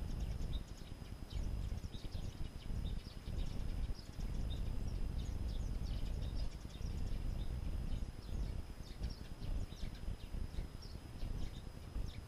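Birds twittering, many short high notes in quick succession throughout, over a loud, uneven low rumble.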